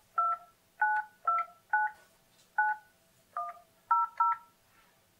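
Alcatel-Lucent 8018 desk phone keypad sounding DTMF touch tones as an outside number is dialed: eight short two-note beeps at uneven intervals, the last two close together.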